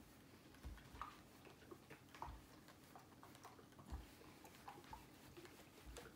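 Near silence, with faint soft knocks and small clicks every second or so at uneven spacing as a steam iron is pushed and shifted over cloth on a countertop.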